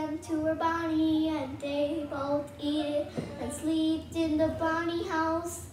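A child singing a slow tune alone, holding each note for about half a second to a second.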